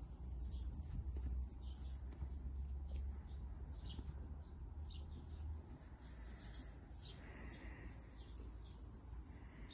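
Insects chirring in a steady high-pitched buzz that fades a couple of seconds in and returns for several seconds from about the middle, over a faint low rumble.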